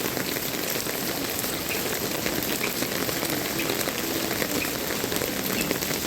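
Pouring rain falling steadily, a dense even hiss flecked with many small drop ticks.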